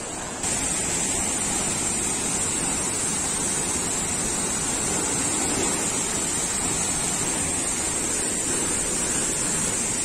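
Waterfall: a steady rush of falling water that steps up in level about half a second in and then holds even.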